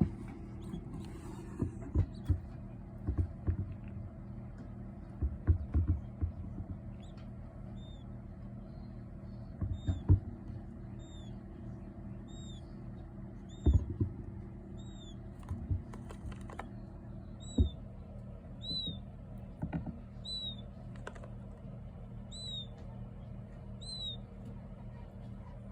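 King quail chicks peeping: short, high, arched peeps repeating about once a second from about seven seconds in, over a steady low hum. Several louder dull knocks and thumps come at irregular moments, mostly in the first two-thirds.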